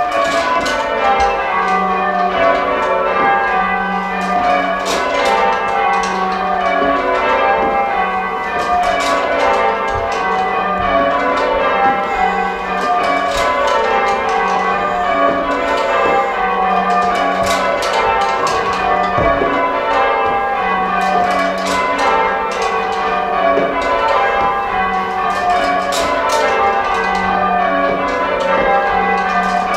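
A ring of full-circle church bells rung by hand on ropes: a continuous run of bell strikes, each row of bells sounding in turn from high to low, with the low tenor bell coming back about every two seconds.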